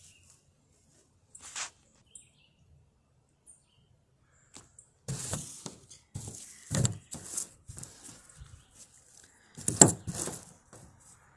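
Rustling and knocks from handling sand-filled plush lizard toys on a table: a few faint clicks at first, then a run of rustles and bumps in the second half, the loudest near the end.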